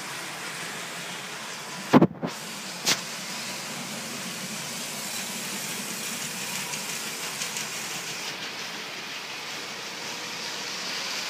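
Lego trains running on plastic track: a steady whir and rattle of the motorised trains, with faint rapid clicking of wheels on track as a locomotive passes close. Two sharp knocks about two and three seconds in.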